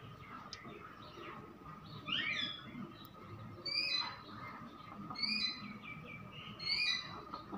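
A bird calling over and over: a short, falling call repeated about every second and a half.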